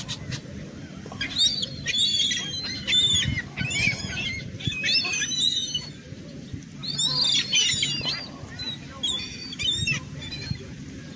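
A flock of gulls calling while being fed: bunches of short, high, overlapping calls that come and go every second or two.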